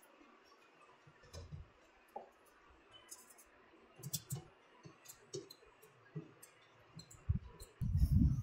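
Metal clicks and light knocks of a spanner turning the transit (shipping) bolts on the sheet-metal back panel of a front-load washing machine. Near the end come heavier, louder thuds as the machine is tipped over.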